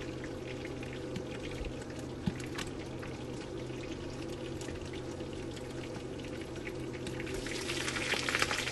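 Pork belly frying in its own rendered fat in a wok, sizzling steadily with scattered pops and crackles as the fat spatters; the sizzle grows louder about seven seconds in.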